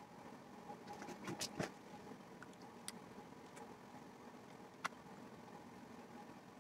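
Clear slime being pressed and worked by fingers in a glass bowl: small sticky clicks and pops, a quick cluster about a second and a half in and single ones near three and five seconds, over a faint steady hum.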